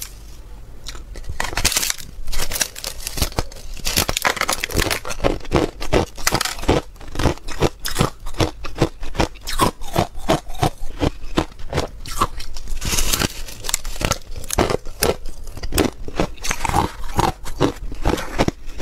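Hard frozen ice shaped like a corn cob being bitten and chewed close to a clip-on microphone: a fast run of sharp, crisp crunches, several a second, starting about a second and a half in.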